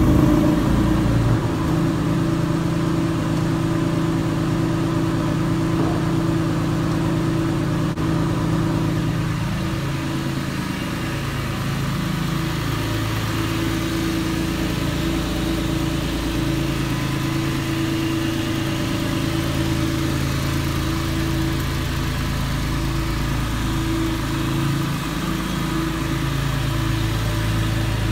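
Porsche 911 (996 Gen.2) Carrera's 3.6-litre flat-six idling just after a cold start following four months of winter storage. It runs smoothly, its idle note shifting a little now and then, a healthy start with nothing amiss from the exhausts.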